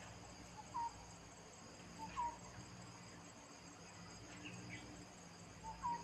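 Steady high-pitched insect chorus in dense foliage. Over it, an animal gives a short, hooked call three times: about a second in, a little after two seconds, and just before the end.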